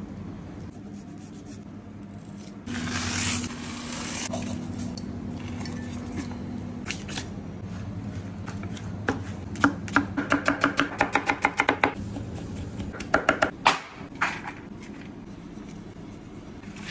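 Kitchen knife work: a knife scraping along fish skin about three seconds in, then a rapid run of knife chops, about seven a second, for a couple of seconds, and a few more strikes shortly after, over a steady low hum.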